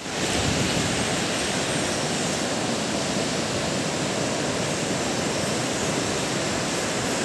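Steady roar of surf breaking along a sandy beach, an even wash of noise without separate wave strokes.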